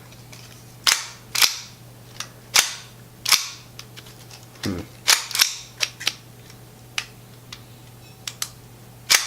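Sharp metallic clicks and clacks from a Tokyo Marui Hi-Capa 5.1 Gold Match gas blowback airsoft pistol worked by hand without gas: its slide, hammer and trigger are operated over and over, giving about fifteen irregularly spaced clicks. The pistol is behaving in a way that puzzles its owner.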